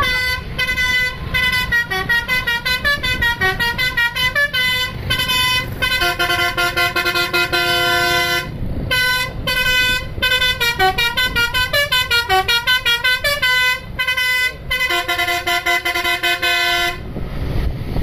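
Basuri telolet horn on an ABS Trans tour bus playing a fast melody of short, clipped notes, with held chords about six seconds in and again near the end.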